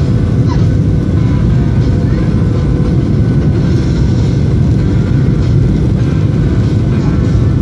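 Cabin noise of a turbofan jet airliner on its landing approach: a loud, steady low rumble of engines and rushing air, with a faint steady hum above it.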